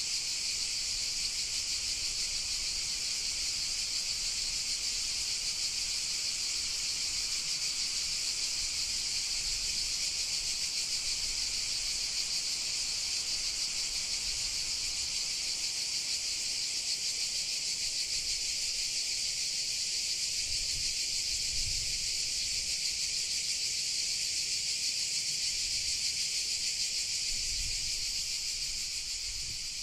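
A dense chorus of cicadas: a steady, high-pitched, hissing buzz without breaks, beginning to fade near the end.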